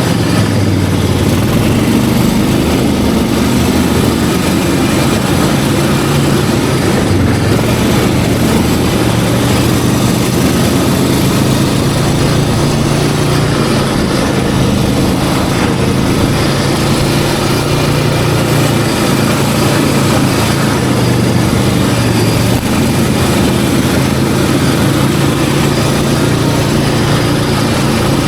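Snowmobile engine running steadily and loud, a continuous low drone that wavers a little in pitch.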